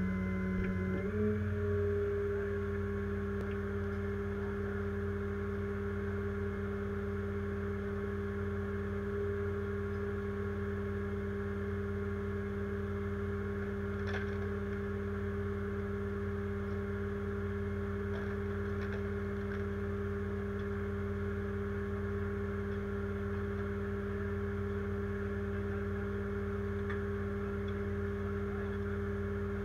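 Truck engine idling steadily, a constant hum whose pitch steps up slightly about a second in, with a few faint ticks later on.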